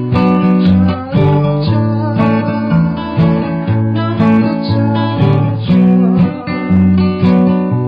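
Music: an instrumental passage of a song, led by strummed acoustic guitar over a bass line.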